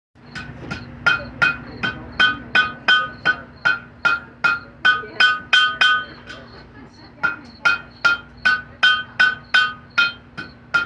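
Blacksmith's hammer striking metal on an anvil, about two to three blows a second, each blow ringing with a clear metallic tone. The hammering pauses for about a second near the middle, then starts again. A faint steady hum runs underneath.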